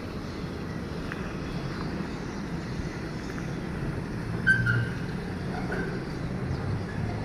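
Heavy diesel machinery running steadily with a low drone, with a brief high squeal about four and a half seconds in.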